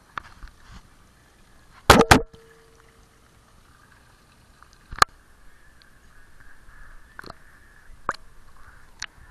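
Sharp knocks and clicks from a waterproof action camera's housing, held at a pool's water surface, with a loud cluster of knocks about two seconds in and a few single ones later. A faint water-lapping hiss grows in the second half.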